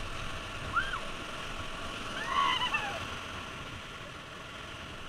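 Rushing whitewater of a swollen, high-flowing river running past and around an inflatable raft in the rapids, a steady wash of water noise. Two short high-pitched calls rise and fall over it, about one second and two and a half seconds in.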